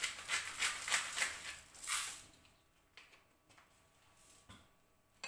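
Pepper mill grinding black pepper: quick regular grinding strokes, about four or five a second, stopping about two seconds in, followed by a few faint clicks.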